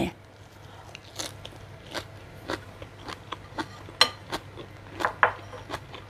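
Crisp chewing of a bite of blanched sea kale dipped in chili paste: sharp crunches about twice a second as the crunchy stem breaks between the teeth.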